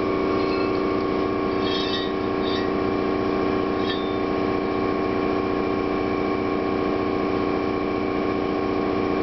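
Air compressor for a 100-litre tank running steadily, a constant hum made up of several steady tones over a fast low pulsing. A few light metallic clinks sound in the first four seconds as the bent steel tube is handled.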